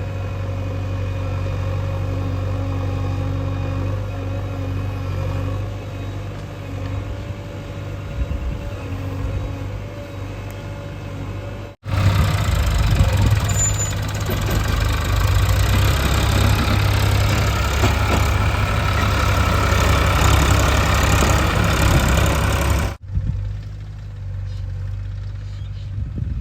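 Heavy diesel engine of a JCB 3DX backhoe loader running steadily at work. After a cut about 12 s in it is louder and rougher for about ten seconds, then steady and quieter again after another cut near the end.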